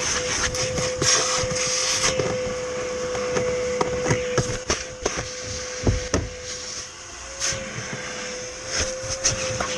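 Vacuum cleaner running steadily, its motor holding one hum that wavers briefly as the airflow changes, while the nozzle knocks and scrapes over a car's interior, cleaning up mud.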